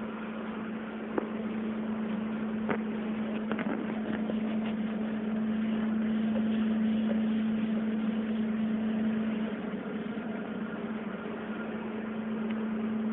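A chalkboard being wiped clean with a duster: a rubbing, brushing sound that is loudest in the middle, with a few sharp taps. A steady low mechanical hum runs underneath throughout.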